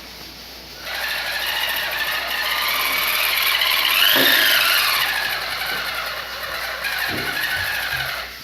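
Homemade RC model truck's small electric motor and gears whining as it drives, starting about a second in, rising in pitch to around the middle, then falling and stopping just before the end.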